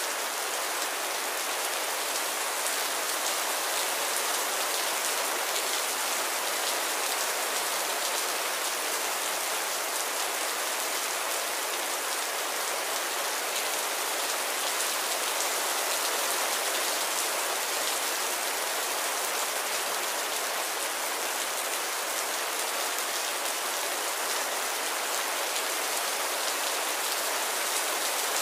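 Heavy rain falling steadily: a dense, even hiss with a fine patter of drops.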